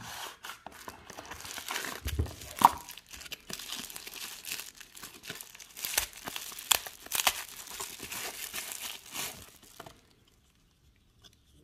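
Plastic bubble-wrap pouch crinkling and crackling as it is handled and a knife is unwrapped from it, with many sharp crackles. It stops near the end.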